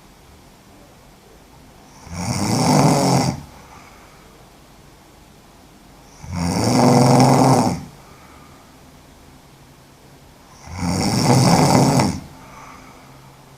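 A woman snoring loudly in sleep: three rasping snores, each lasting over a second, coming about every four and a half seconds, with quiet breathing between them.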